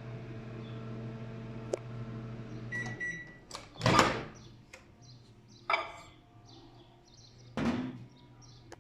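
LG microwave oven humming steadily while heating, working normally again with its door switch replaced; the hum cuts off about three seconds in, just after a short beep. About a second later comes a loud clunk as the door is opened, followed by two more knocks.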